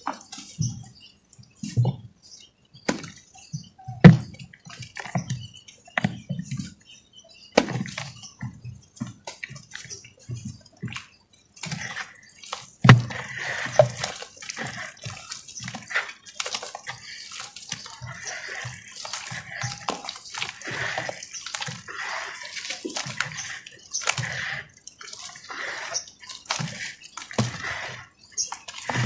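Hands squeezing and kneading lumps of red dirt in water: wet squelching, sloshing and dripping, at first in separate squeezes with dull thumps, then from about twelve seconds in a denser, rhythmic squelch about once a second as the dirt breaks down into thick mud slurry.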